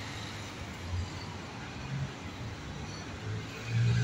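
Street traffic: a steady rumble of vehicles on the road alongside, growing louder near the end as one comes closer.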